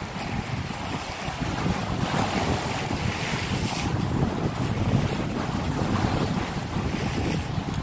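Wind buffeting the microphone over sea waves breaking and washing against shoreline rocks, the wash surging in and out.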